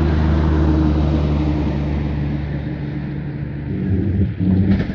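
An engine running steadily with a low, even hum that fades a little, then a few handling knocks and a sharp click near the end.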